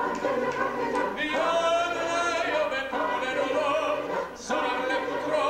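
Choir rehearsing, singing a phrase of held notes, with a short break just after four seconds before the singing picks up again.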